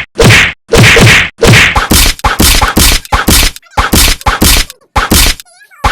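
A man coughing hard in a long fit: a dozen or more loud, harsh coughs in quick succession, about two to three a second.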